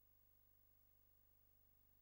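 Near silence: a faint, steady low hum and hiss.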